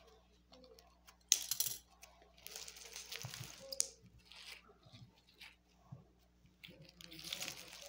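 Hands tearing and crumpling a cut-open squishy's white filling, making rustling, crinkling bursts. There is a sharp one about a second and a half in, a longer one a second later, and another near the end.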